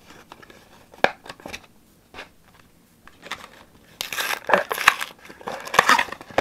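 Paperboard packaging of a trading-card box being torn open by hand. First come a few small crackles and clicks, then two louder, longer rips near the end.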